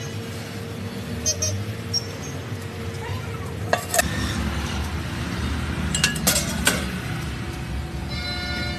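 Metal utensils clinking and scraping against a large flat dosa griddle as batter is spread and toppings added, with a few sharp clinks about four seconds in and a quick cluster around six seconds, over a steady street background.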